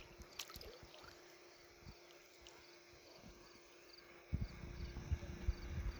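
Small knocks and clicks of gear being handled in a kayak, over faint, evenly repeated high insect chirps. About four seconds in, a low rumble with bumps sets in.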